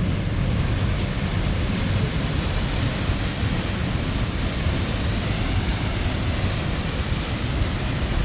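Rushing river water, a steady loud rush: the Swartrivier in strong flow after heavy rain.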